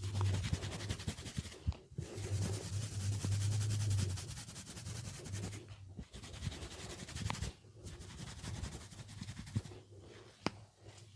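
Fingers scratching and rubbing through hair on the scalp, in spells of rapid strokes broken by short pauses, with one sharp click near the end.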